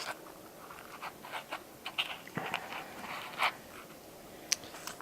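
Light scratching, scraping and small clicks of the model plane's wiring and parts being handled, with one sharp click about four and a half seconds in.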